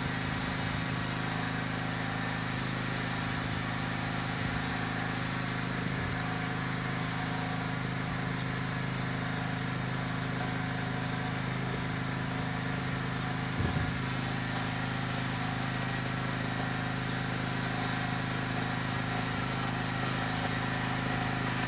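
A steady mechanical hum from a running machine, even in level throughout, with a single short knock about fourteen seconds in.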